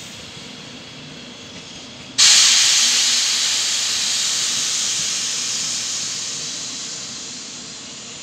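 A sudden loud hiss of compressed air venting from a train's air system at a station, starting about two seconds in and slowly fading over the next several seconds. Before it, the departing double-deck regional train runs faintly.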